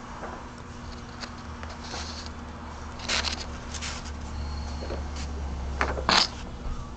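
Scattered clicks and short scrapes of something being handled, over a steady low hum, with louder scrapes about three seconds in and near the end.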